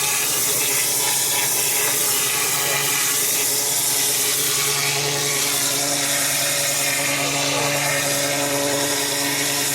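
Hot-water pressure washer running steadily: an even engine hum under the hiss of the high-pressure water jet spraying the driveway.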